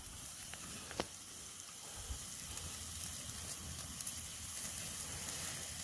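Steaks sizzling on a metal grate over a wood campfire: a steady hiss, with one sharp pop about a second in and a few fainter ones later.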